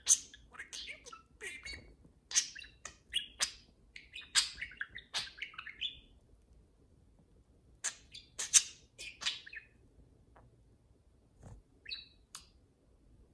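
Pet budgerigars chirping and chattering in quick runs of short, high chirps, with a pause in the middle and a few scattered chirps near the end.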